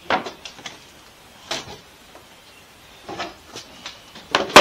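A run of irregular knocks and clatters, hard objects being handled and bumped during hand work, loudest in a pair near the end.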